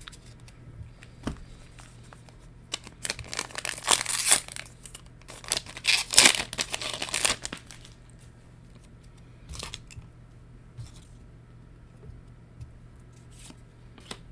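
A foil trading-card booster pack being torn open and its wrapper crinkled: a run of loud rustling tears between about three and seven seconds in, then a few faint rustles.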